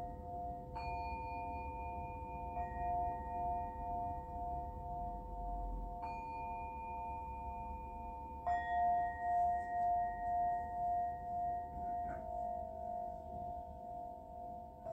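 Several singing bowls ringing together, with a new bowl struck every few seconds and the tones left to sustain and overlap. One low tone pulses steadily as it rings. The strike about two-thirds of the way through is the loudest.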